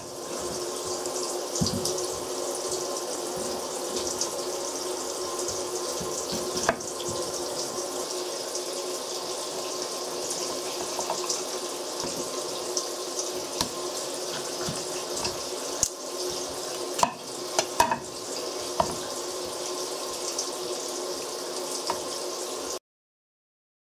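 Kitchen knife cutting potato and raw chicken on a wooden cutting board, knocking against the board a few times, over a steady rushing noise with a hum. The sound cuts off suddenly near the end.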